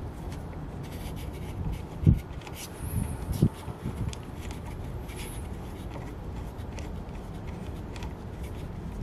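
Hands handling a red steering damper on an electric scooter's front stem: light rubbing and scattered small clicks, with two low thumps about two and three and a half seconds in.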